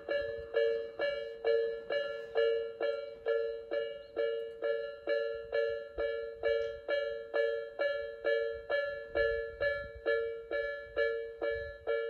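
Japanese railway level-crossing warning bell, the electronic 'Nikko type' crossing alarm, sounding a steady repeating ding at nearly three strikes a second, each strike ringing briefly and fading before the next.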